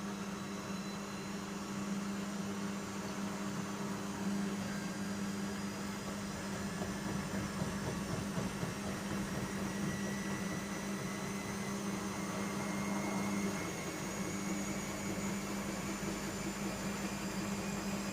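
Bauknecht Super Eco 6413 washing machine running, with a steady low hum and faint high whines that rise slowly in pitch.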